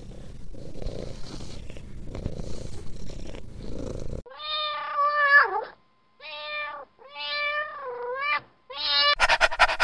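Domestic cat purring, a low rough rumble, then meowing four times in pitched, bending calls with short gaps between them.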